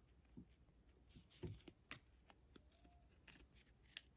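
Faint, soft clicks and rustles of hockey trading cards being slid and flipped over one by one in the hands, a few scattered ticks against near silence.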